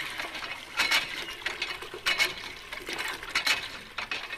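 Irregular sharp clicks and clinks, a few a second, over a faint hiss.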